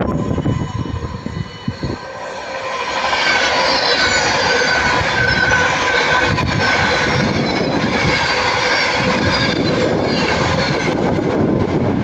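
Class 390 Pendolino electric train moving along the platform, its noise growing louder from about two to three seconds in, with several high whining tones that drift slowly down in pitch over the running noise.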